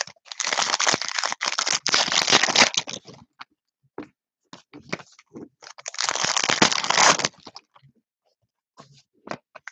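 Plastic foil wrapper of a Donruss soccer trading card pack being torn open and crinkled in two long bouts, with light clicks of cards being handled in between.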